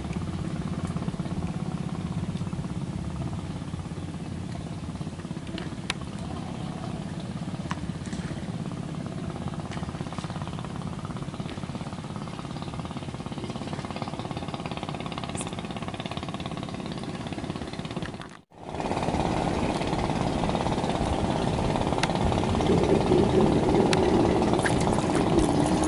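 Steady low rumble of a distant engine. It drops out for a moment about eighteen seconds in, then returns louder.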